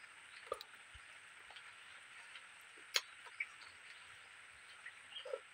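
Mouth sounds of eating by hand: chewing with a handful of short, sharp wet clicks and smacks, the loudest about three seconds in, over a steady faint high hiss.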